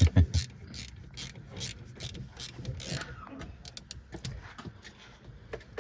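Hand ratchet wrench clicking in a regular run of short strokes, with a few quicker clicks about four seconds in; a few low knocks at the very start.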